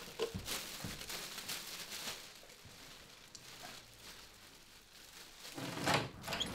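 Black plastic garbage bag rustling and scuffing as it is pushed over a body and handled, dying down in the middle, with a louder bump near the end.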